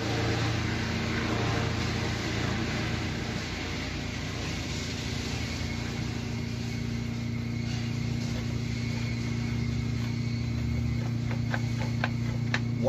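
A steady mechanical hum from a running motor or fan. A few light metallic clicks near the end come from tools working the engine-mount bolts.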